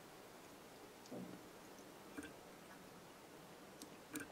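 Near silence: faint room hiss with a few soft, unevenly spaced clicks, the sharpest pair near the end.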